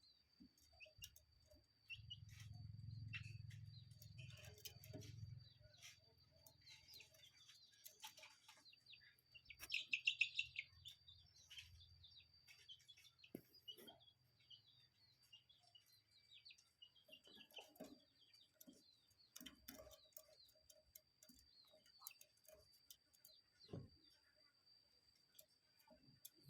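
Faint birdsong: scattered chirps and ticks from small birds, with one louder, brief chirping trill about ten seconds in. Under it run a thin, steady high whine and a low rumble from about two to six seconds in.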